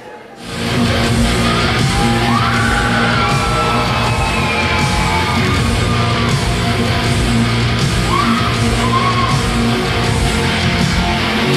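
Loud hard rock music with distorted guitar and yelled vocals, coming in about half a second in after a brief drop in level.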